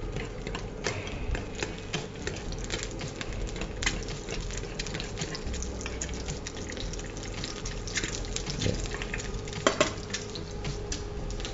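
Quail egg frying in a little hot oil in a small pan, the oil crackling steadily with many small pops, and a metal spoon now and then scraping or tapping the pan as the oil is spooned over the egg.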